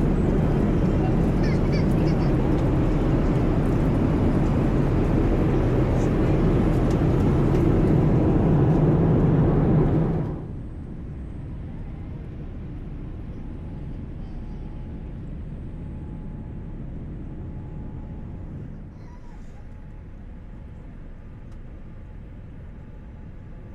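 Cabin noise of a Boeing 787 airliner: a loud, steady rumbling roar that drops sharply about ten seconds in to a much quieter hum, then steps down a little more near the end.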